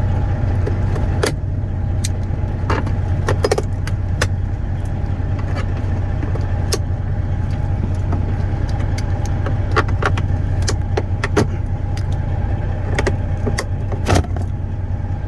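Steady low drone of an idling diesel truck engine heard inside the cab, with scattered sharp clicks and rattles of a screwdriver and pliers working the dash speaker out; the loudest click comes near the end.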